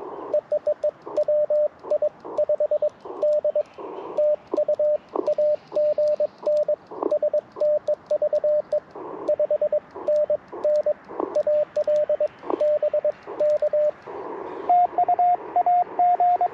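Morse code (CW) from an Icom IC-705 transceiver: a steady beep keyed on and off in dots and dashes, with bursts of static between the characters. About fourteen seconds in, a slightly higher-pitched signal takes over, a calling station tuned further off frequency than the others.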